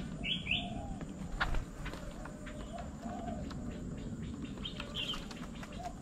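Doves cooing in soft, low, repeated phrases, with two quick high bird chirps just after the start and another about five seconds in, and a few sharp ticks about a second and a half in.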